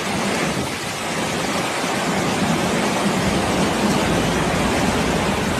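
Steady rushing noise of water, with a low rumble joining about four seconds in.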